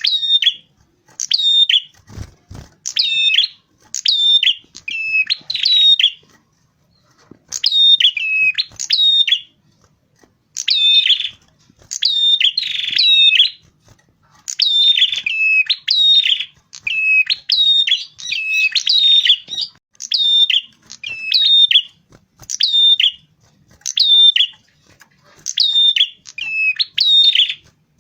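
Prenjak kepala merah (a small red-headed warbler) calling in loud, sharp chirp phrases, each a quick run of falling notes, repeated about once a second with short pauses. A brief low thump about two seconds in.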